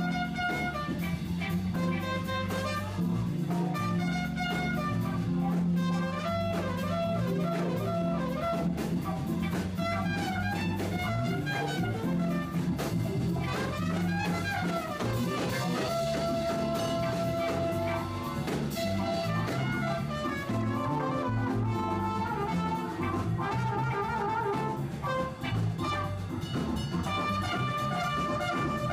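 Jazz band with horns playing continuously, recorded in mono through an iPhone's built-in microphone.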